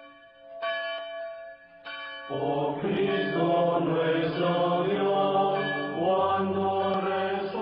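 A church bell struck twice at an even, slow pace, then, from about two seconds in, a choir chanting in held, layered notes.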